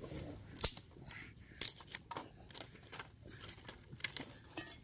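Dry twigs being snapped by hand: a string of short, sharp snaps, the loudest about half a second and a second and a half in.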